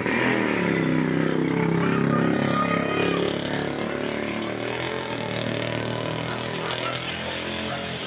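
Motorcycle engine passing close, loud for the first three seconds, then easing into steady street traffic noise.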